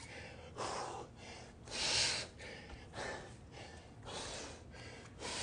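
A man breathing hard in forceful gasps about once a second, the loudest about two seconds in: he is out of breath from exertion during bear crawls.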